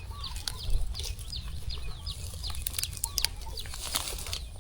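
A bird calling over and over: a short, high, falling note repeated about three times a second, with scattered sharp clicks and a low rumble underneath.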